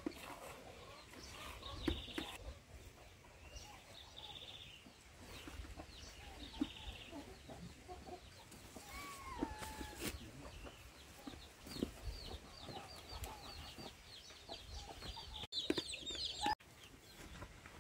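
Farmyard chickens clucking, with scattered short calls and a run of quick high chirps in the second half.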